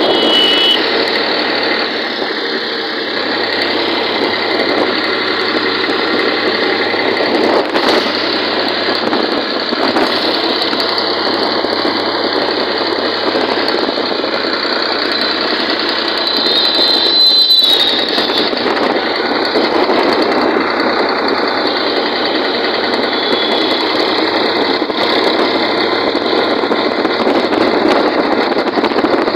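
Sonalika tractor's diesel engine running steadily while the tractor drives along, heard close up from the driver's seat. A brief high squeal cuts in just past halfway.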